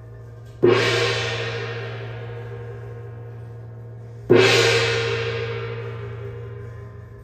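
Hand-held brass gong struck twice with a padded mallet, about three and a half seconds apart; each stroke rings on and slowly fades. A steady low hum runs underneath.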